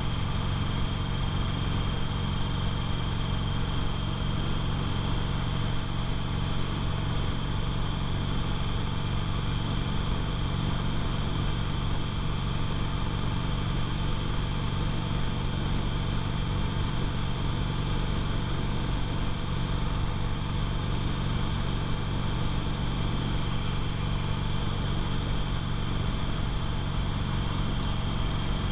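2008 Harley-Davidson Sportster 883L's air-cooled V-twin running steadily at an even speed while riding, with no change in engine pitch.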